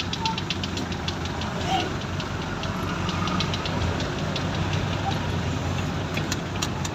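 Jeepney's diesel engine running with a rhythmic ticking clatter of about six ticks a second over a steady low rumble, heard from inside the passenger cabin.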